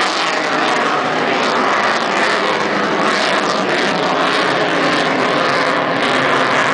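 Lockheed Martin F-22 Raptor's twin Pratt & Whitney F119 turbofan engines, a loud, steady jet noise as the fighter flies its display overhead.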